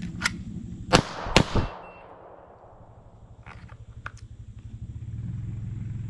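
Two loud shots from a Glock 48 9mm pistol about half a second apart, about a second in, each followed by a fading echo, fired from the draw on a shot timer's start signal. A steady low rumble runs underneath.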